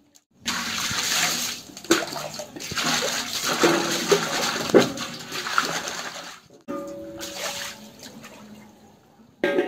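Water splashing and sloshing over a large metal pan as it is rinsed and scrubbed by hand, with a few sharp knocks of hand and metal against the pan.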